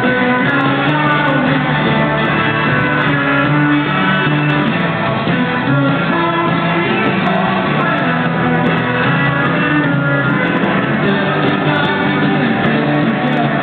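Live music from a band in concert, with held notes and chords going on without a break.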